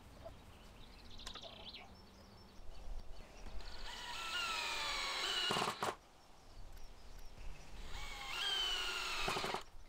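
Cordless drill driving wood screws up through the supports into the tabletop planks, in two runs of a couple of seconds each, the motor stopping abruptly at the end of each.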